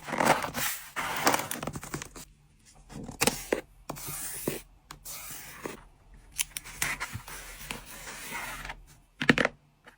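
Hands handling packing materials: irregular rustling and scraping with sharp taps and clicks, and a quick cluster of loud clicks about nine seconds in.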